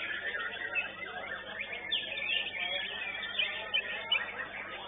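White-rumped shamas (murai batu) singing in dense, overlapping whistles and chirps, several birds at once.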